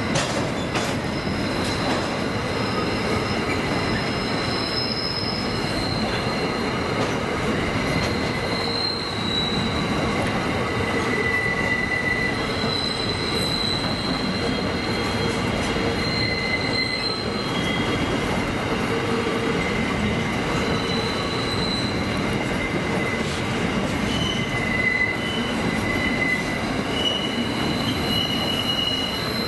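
Empty coal hopper wagons rolling past, their steel wheels rumbling steadily on the rails. High-pitched flange squeals come and go every few seconds as the wheels take the curve.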